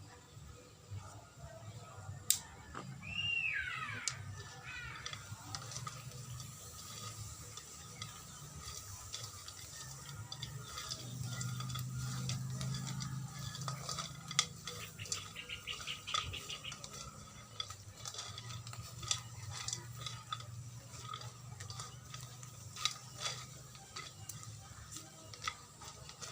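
Clinks and clicks of a pot and utensils with some water sounds during cooking, scattered irregularly. A short falling whistle-like call sounds about three seconds in.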